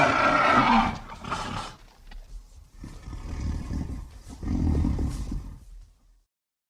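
Monster roar sound effect for a giant reptile creature: a loud, high screeching roar that breaks off about a second in, followed after a short lull by a deep, low growl lasting about three seconds, then silence.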